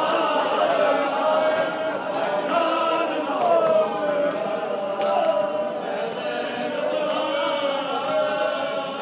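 A crowd of men's voices chanting a Shia mourning lament (noha) together in long, wavering melodic lines.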